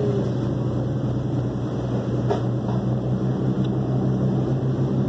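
Boat engine running steadily under way, a constant low drone with the rush of water and wind along the hull, heard from inside the cabin.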